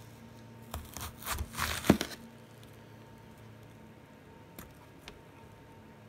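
Kitchen knife cutting down through a large whole onion with a crisp crunching for about a second and a half, ending in a sharp knock as the blade hits the plastic cutting board. Two faint taps follow later.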